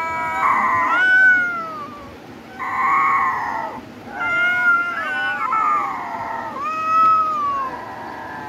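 Cats meowing: long, drawn-out calls that glide up and down in pitch, often two at once, coming in about four bouts with short pauses between.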